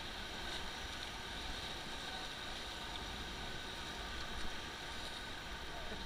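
Steady rushing of a fast, choppy river around an inflatable raft, with a low rumble underneath.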